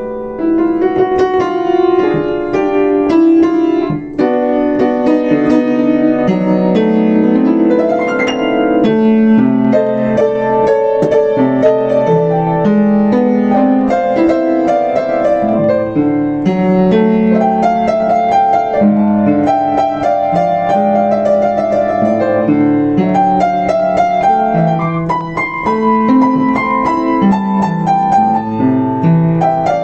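Yamaha U5 upright acoustic piano played solo: a slow melody over struck chords, notes ringing on.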